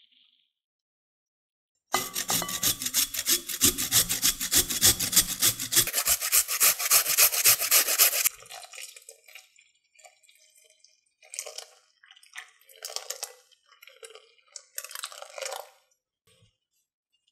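Raw potato grated on a flat hand-held metal grater: rapid, rhythmic rasping strokes starting about two seconds in and stopping abruptly about six seconds later. After that come a few quieter, short scraping sounds.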